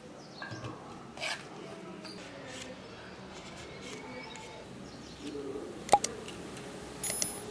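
Vegetable peeler scraping the skin off a whole beetroot held in the hand, with small scrapes and clicks and one sharp click about six seconds in.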